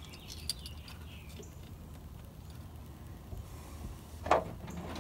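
Quiet hand-tool work on the truck's engine while a spark plug thread insert is seated in the cylinder head: a few faint clicks and one sharp knock a little after four seconds in, over a low steady hum.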